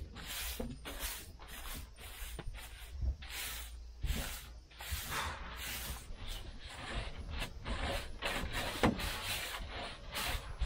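Broom sweeping grit and debris off the floor in quick, scratchy strokes, about two a second.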